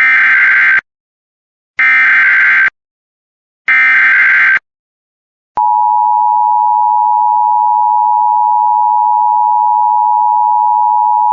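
Emergency Alert System SAME header: three short bursts of digital data tones about two seconds apart. After a second of silence, the steady two-tone EAS attention signal (853 and 960 Hz together) starts and holds.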